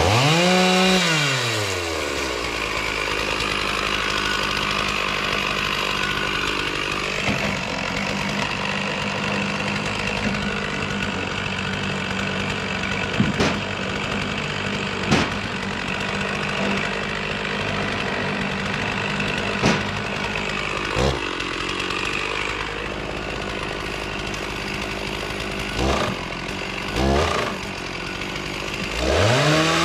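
Chainsaw engine revving up and back down, then running steadily at high speed, with a few sharp knocks along the way and a fresh rev-up near the end.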